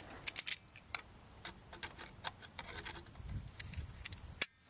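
Sharp metallic clicks and light scraping of 16-gauge steel wire being twisted tight with vice grips around a sapling, in an uneven run: a quick cluster of clicks about half a second in, scattered ticks through the middle, and one sharp click near the end.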